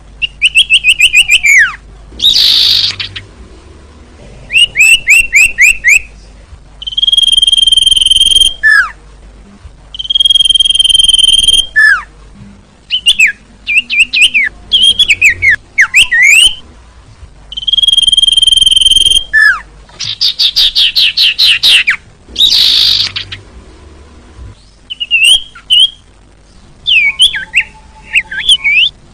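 Sirtu (cipoh, common iora) calls from a bird-lure recording: clear whistles held about a second alternate with fast runs of short notes, trills and sharp falling notes, in loud bursts with short pauses between.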